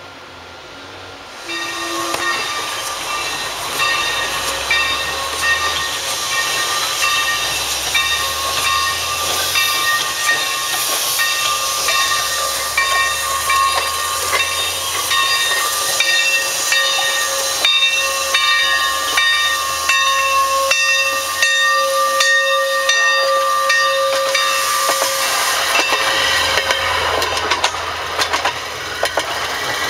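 Alberni Pacific No. 7 steam locomotive letting off steam: a loud hiss that starts about a second and a half in, with steady whistling tones over it. The tones stop a few seconds before the end while the hiss goes on.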